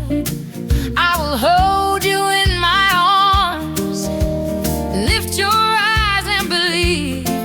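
Gospel-style song: a singer holds long, wavering notes over a steady instrumental backing.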